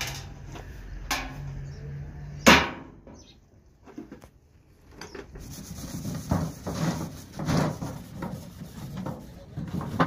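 Empty sheet-metal ghee tin knocking and clanking against scrap cans as it is pulled from a pile, the loudest knock about two and a half seconds in. Later, a stiff brush scrubs the tin in repeated strokes.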